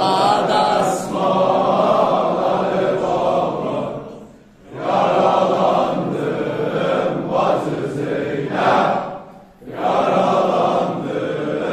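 Large group of men chanting a mourning lament for Imam Hussein together in unison. The chant comes in long phrases with short breaks about every five seconds.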